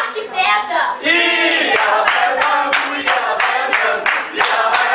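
A group of voices singing together in unison, with a held note about a second in. Quick, steady handclaps come in from about two seconds in and keep time with the song.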